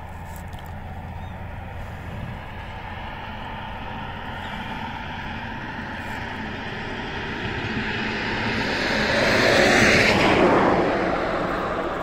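A vehicle passing by: a rushing noise that swells slowly to a peak about ten seconds in and then fades, over a steady low rumble.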